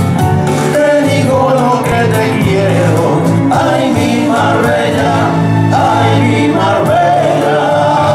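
Two men singing a song together with instrumental accompaniment.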